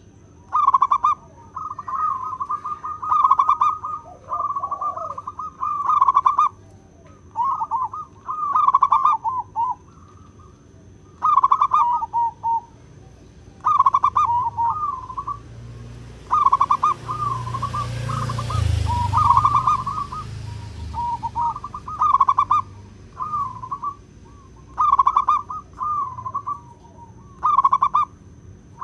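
Zebra dove (perkutut) cooing: rolling, trilled phrases a second or two long, repeated over and over with short pauses. A low rumble swells and fades in the middle.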